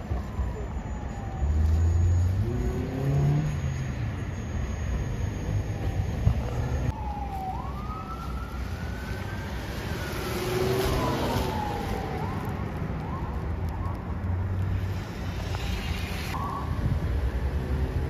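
An emergency-vehicle siren wailing up and down in the distance, over steady traffic and engine rumble; the siren glides are clearest in the middle.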